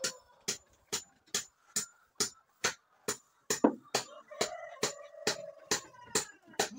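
Background music: a steady electronic drum beat of sharp clicks, a little over two a second, with a faint held tone in the middle.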